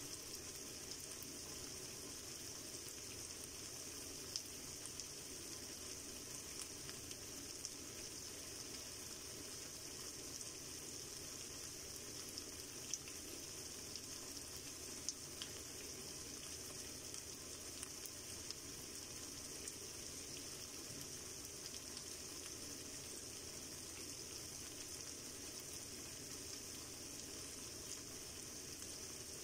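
Ground pork sizzling steadily in a nonstick frying pan, with a few faint clicks now and then.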